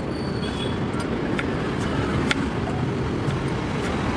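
Steady rumble of street traffic, with a few sharp taps of a knife on a wooden chopping board as an onion is cut.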